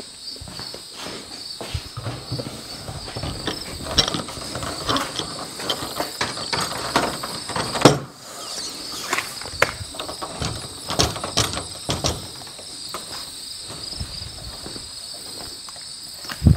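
Knocks, scrapes and clatter of a garage door panel being handled, lifted and set into place, with one sharp knock about eight seconds in. A steady high-pitched drone of insects runs underneath.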